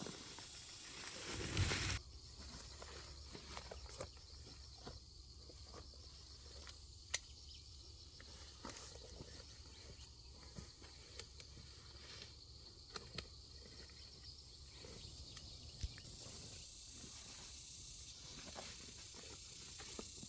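Outdoor rural ambience with a steady high insect hiss. Scattered light clicks and rustles come through it, and a brief rushing swish rises and cuts off about two seconds in.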